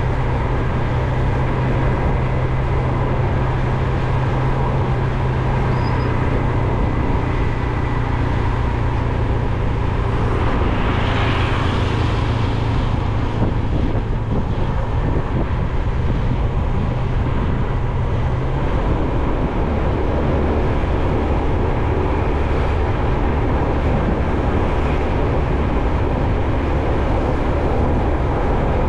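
Steady running noise of a road vehicle on the move, a low hum under a broad hiss, swelling briefly louder about ten seconds in.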